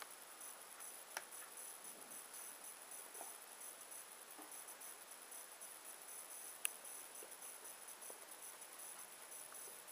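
Near silence: faint room tone with a steady high-pitched hiss, broken by a light click about a second in and a sharper click past the middle.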